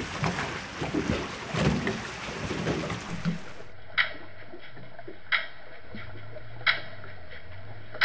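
A small boat running on open water for the first few seconds, then underwater sound of pile-driving for offshore wind turbine foundations, heard about 3 km from the work vessel: sharp hammer strikes about one every second and a third, three of them plus one more right at the end, over a low steady hum.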